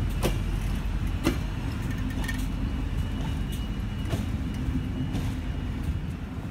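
Passenger train coaches rolling slowly along the track: a steady low rumble, with a few sharp clacks of the wheels over rail joints at irregular intervals.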